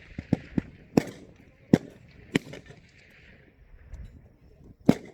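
M4 rifle shots on a firing range: about six single sharp cracks at irregular spacing, some fainter than others, the loudest near the end.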